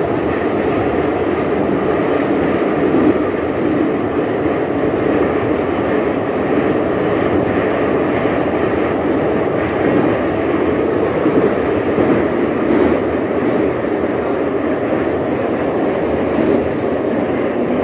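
Ezh3RU1 metro car heard from inside while running through a tunnel: a loud, steady rumble of wheels and running gear on the rails.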